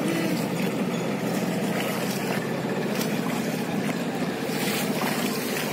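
Wooden river passenger boat under way: a steady low engine rattle with wind and water noise.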